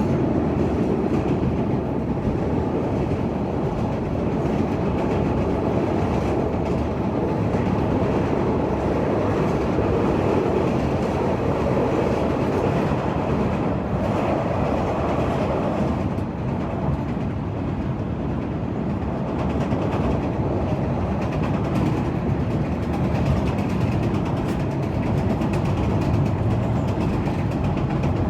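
Chicago CTA rapid-transit train running along the rails: a steady rumble of wheels and running gear with a light clickety-clack.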